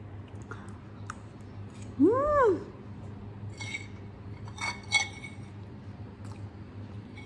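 Metal fork clinking against a ceramic plate a few times during eating. About two seconds in, there is one short call that rises and then falls in pitch, the loudest sound here.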